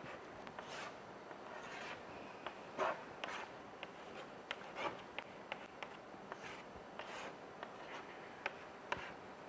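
Chalk writing on a blackboard: faint, irregular short scratching strokes and light taps.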